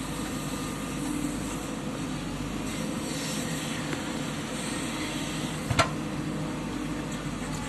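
Diesel engine of a JCB 3DX backhoe loader running steadily under work, with a single sharp metallic clank near the end.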